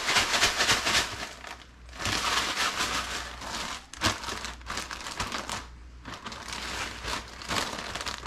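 Clear plastic zipper bag of crushed corn flakes being shaken and then handled, the plastic crinkling and the dry crumbs rattling inside as fish fillets are breaded. It is loudest in the first second or so, then comes and goes with short pauses.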